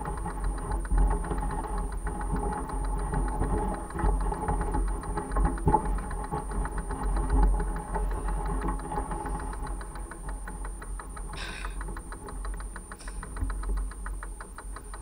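Mongoose Argus fat-tyre bike rolling along a gravel road: a continuous crunch and rattle from the tyres and frame, with wind rumbling on the microphone. Two short higher sounds come about a second and a half apart near the end.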